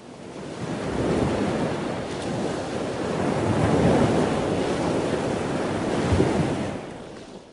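Ocean surf washing in a few slow swells. It fades in at the start and fades out near the end.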